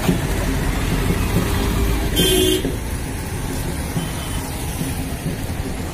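Road traffic heard from a moving vehicle: a steady low rumble of engines and tyres, with a short vehicle horn toot about two seconds in.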